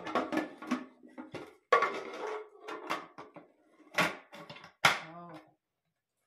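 Hard plastic parts of a food processor's chopper bowl clattering and clicking as the lid with its feed tube is fitted onto the clear bowl and the bowl is handled, with a few sharp clicks standing out; the clatter stops about five and a half seconds in.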